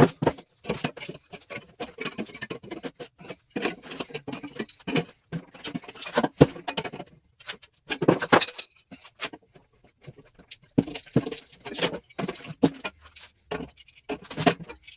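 Metal being worked by hand on a scrap HVAC coil: irregular clinks, knocks and short scrapes as sheet metal is pried and pulled off the coil.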